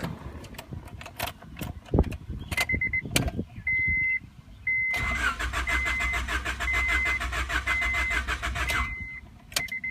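The starter cranks the 1994 Honda Accord EX's 2.2-litre four-cylinder for about four seconds, and the engine never catches: a crank-no-start with no spark and no fuel injection, here traced to a burnt ECU. A few key clicks come first, and a dashboard warning chime beeps repeatedly throughout.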